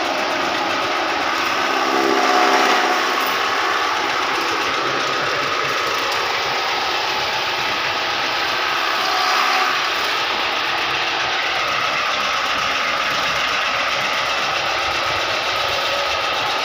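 Electric chaff cutter driven by a 3 hp motor running and chopping green fodder, a steady whirring, chopping noise that grows louder briefly twice, about two seconds in and again near the middle.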